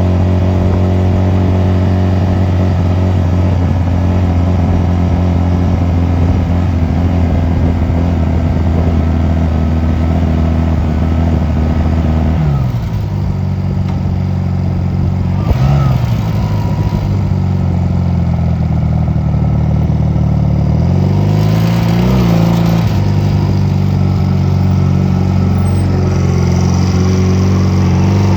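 Honda 250cc motorcycle engine running while riding. It holds a steady pitch at first; about twelve seconds in the pitch falls, then it dips and climbs again a few times later as the throttle eases and opens.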